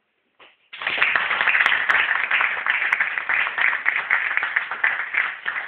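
Audience applauding, with many hands clapping at once. It starts suddenly just under a second in and goes on strongly.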